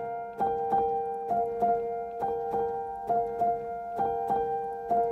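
Background music: a keyboard tune with notes struck in a steady, even rhythm.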